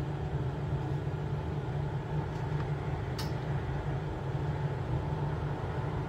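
Hot-air rework gun blowing steadily, its fan giving a low, even hum, while it melts hot glue around a detector's speaker wiring. A single short click comes about three seconds in.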